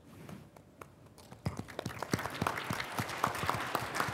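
Audience applause: it starts about a second and a half in with many overlapping hand claps and keeps going.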